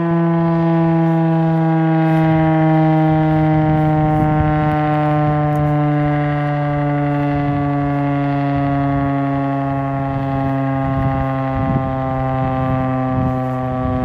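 Republic STH-10 outdoor warning siren sounding a steady alert tone. Its pitch slowly falls throughout.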